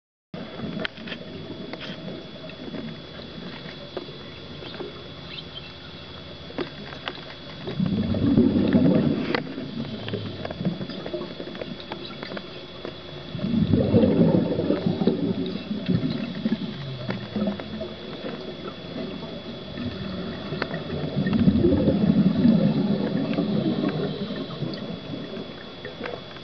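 Underwater sound of scuba divers exhaling through their regulators: three long swells of bubbling, roughly seven seconds apart, over a steady underwater hiss with scattered sharp clicks and a faint steady high tone.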